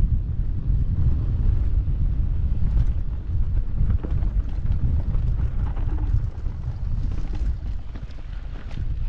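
Wind buffeting a GoPro action camera's microphone as a mountain bike rolls downhill on a dirt and grass trail: a steady low rumble that eases a little after about six seconds, with faint clicks and rattles from the bike.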